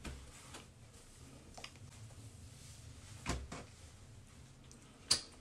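A few soft knocks and clicks, as of small things being handled, over a faint steady low hum; the loudest knock comes about three seconds in, with a sharp click near the end.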